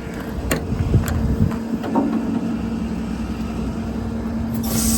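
Service truck's engine running steadily, with a few clicks early on. A steady hum joins in about two seconds in, and there is a short hiss near the end.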